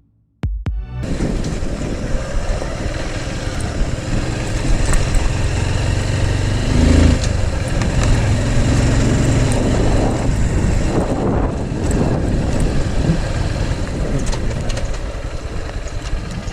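Motorcycle running while being ridden over a rough road, its engine mixed with dense, uneven road and rush noise. It cuts in after a brief gap of silence.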